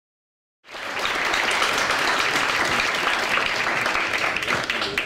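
Audience applauding as a stand-up comedian takes the stage: a dense, steady wash of clapping that starts abruptly just over half a second in and eases off at the very end.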